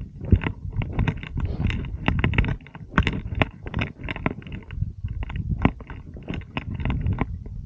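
Footsteps crunching and scraping on loose stones and gravel down a steep rocky path, irregular, two or three a second, over a steady low rumble on the microphone.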